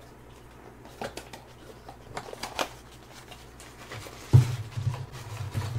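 Handling noise of an accessory box being opened and its contents unpacked: scattered rustling and small clicks of cardboard and plastic bags, with a louder knock about four seconds in.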